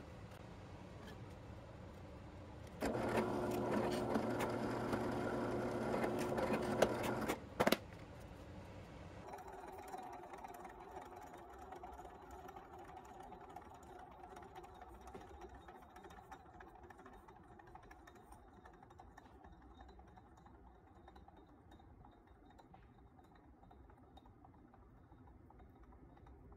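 Benchtop drill press motor running steadily, louder for about four seconds from roughly three seconds in, then a short knock as it stops. A faint, slowly fading hum is all that remains for the rest.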